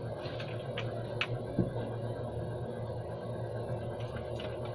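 Small clicks and taps of a screwdriver and hard plastic casing as an angle grinder is being taken apart. There are a handful of them, the clearest about a second in and a few more near the end, over a steady low hum.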